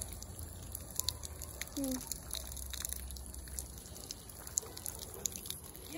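Water running in a thin stream from an outdoor garden tap, splashing onto the plants and pot below, with scattered drips.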